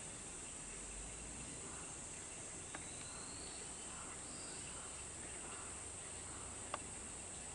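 Steady high-pitched drone of insects, with two faint clicks, the louder one near the end.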